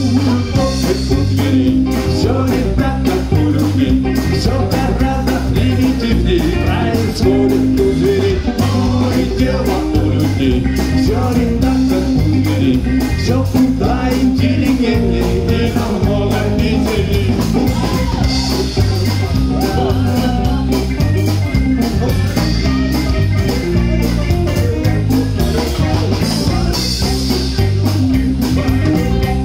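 Live band playing an instrumental passage between verses: drum kit and bass guitar keep a steady repeating beat under guitar.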